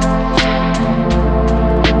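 Background music: an electronic track with sustained chords and bass, a steady drum beat, and a bass-note change about a second in.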